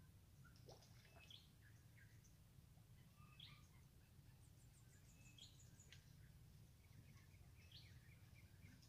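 Faint birdsong: scattered short high chirps and, about halfway through, a quick high trill of about ten notes, over a low steady background rumble of outdoor ambience.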